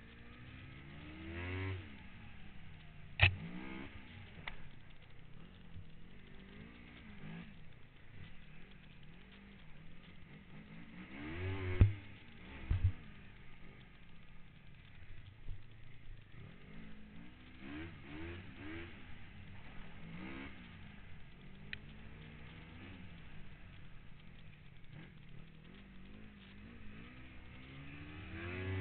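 Snowmobile engine rising and falling in pitch, swelling loud several times as the sled goes round. A sharp knock about three seconds in and two more around the middle stand out as the loudest sounds.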